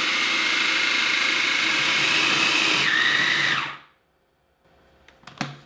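Food processor motor running at full speed, grinding dry roasted peanuts at the coarse-sand stage, with a steady high whine. About three seconds in it is switched off: the whine drops and the blade spins down to a stop within a second.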